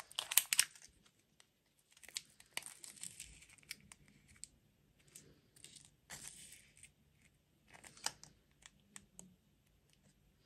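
Foil seal being peeled off a Kinder Joy's plastic cup. It comes in bouts of crinkling and tearing, loudest just after the start, then quieter rustles and a few light clicks as the plastic tray is handled.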